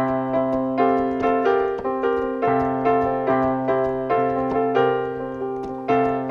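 Yamaha MX49 keyboard synthesizer playing its Old Blues Piano voice: bluesy piano chords struck over a held bass note, a new chord roughly every half second.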